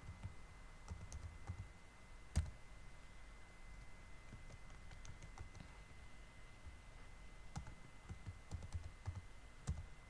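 Computer keyboard keys being typed in short irregular bursts as a password is entered, with one sharper single click about two and a half seconds in. A faint steady high-pitched tone sits underneath.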